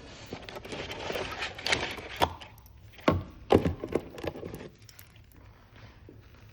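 Handling noise from a packed product: rustling of paper and packaging with several sharp knocks of hard items being moved and set down, stopping a little over two-thirds of the way through.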